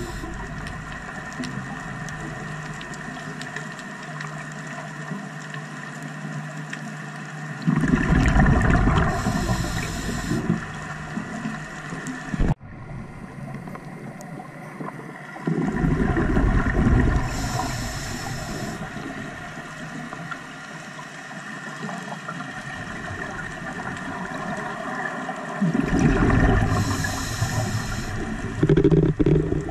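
Scuba diver breathing through a regulator underwater: three exhalations about nine seconds apart, each a rumbling gush of bubbles a few seconds long, over a steady underwater hum of several held pitches.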